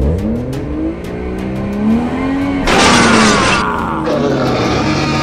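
Radio-controlled model vehicle's drive sound climbing in pitch as it speeds up, then running at a steady pitch, with a loud hiss lasting about a second in the middle.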